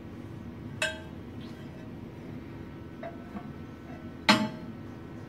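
Metal build plate being knocked into place on the 3D printer's bed: two sharp metallic clinks about three and a half seconds apart, the second louder, with a few light taps between, over a low steady hum.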